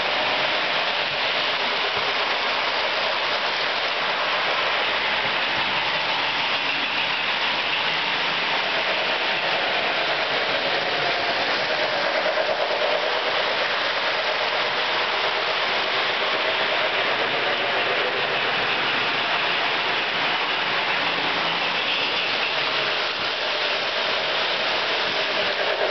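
Lionel model trains running on the platform's track: a steady whirring rumble of electric motors and metal wheels on the rails, with cars passing close by.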